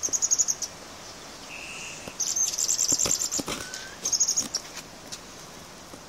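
Small birds chirping outdoors: three quick high-pitched trills, with a short steady whistle and a rising whistled note between them, and a few faint clicks.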